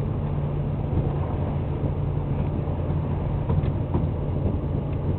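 Motorboat engine running steadily as the boat tows a parasail, a constant low drone.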